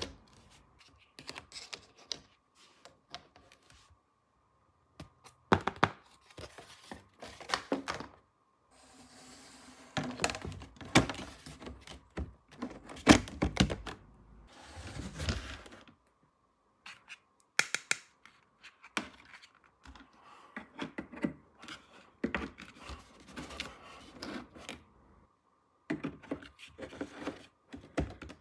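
Small plastic toy parts being handled and unpacked: irregular clicks and taps, with a denser stretch of rustling and scraping about halfway through.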